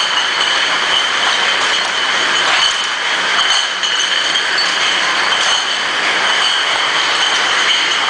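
Glass bottle washing machine line running: steady mechanical noise with a constant high whine, and occasional light clinks of glass bottles moving along the conveyor.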